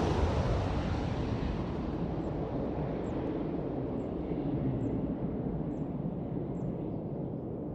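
Boeing 737-800 jet airliner on its arrival, just past overhead: the noise of its twin CFM56 turbofans fades steadily as it draws away, the hiss dying first and a low rumble lingering. Faint short chirps sound high above it about once a second.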